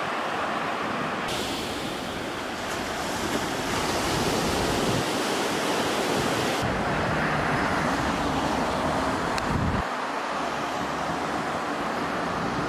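Steady outdoor noise of sea waves with wind on the microphone and road traffic. The sound shifts abruptly a few times, with a deeper rumble for a few seconds past the middle.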